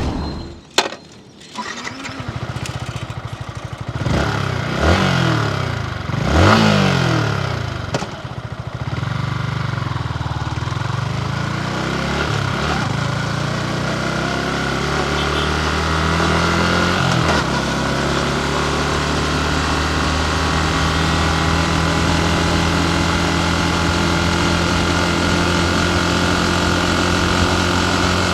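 Yamaha MT15's single-cylinder engine starting up after a click and a short lull. It is revved twice with a rising pitch, then settles to a steady idle.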